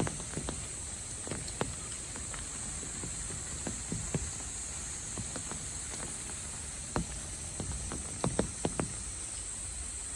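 Steady high-pitched insect chorus with irregular sharp taps and patters on top, a quick cluster of them about eight seconds in.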